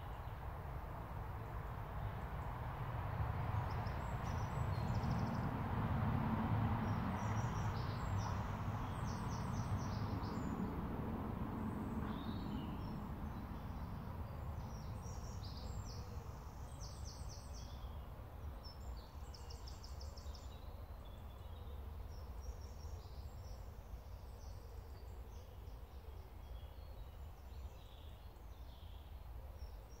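Wind in the woods, a low rumbling haze that swells for several seconds near the start and then eases, with small songbirds singing short, high trills and chirps throughout.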